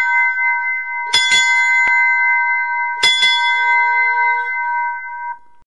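A bell rung in quick double strokes about two seconds apart, its clear ringing tone carrying on between the strokes and cutting off abruptly near the end.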